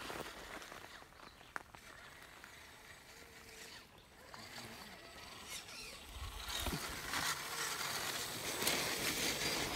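Electric scale International Scout II RC crawler driving down a dirt trail: its motor and drivetrain running with tyres crunching over dirt and gravel. It grows louder over the last few seconds as the truck comes close.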